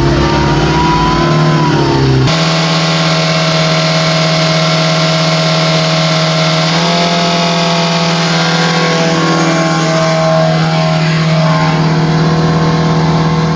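Tata Indigo's 1405 cc four-cylinder turbo-diesel engine running: revved up and eased off in the first two seconds, then, after an abrupt cut, running steadily until it stops suddenly at the end.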